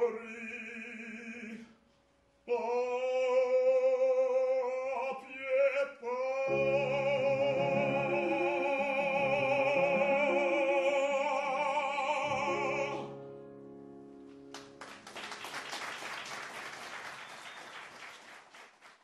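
Operatic baritone singing with piano, finishing on a long held final note with vibrato over piano chords. The voice cuts off about 13 seconds in, and the audience applauds for the last few seconds.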